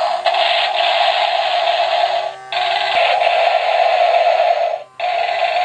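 Battery-powered transforming tank-robot toy playing its electronic sound effects through its small built-in speaker: a harsh, noisy electronic sound that cuts out briefly twice, about two and a half and five seconds in.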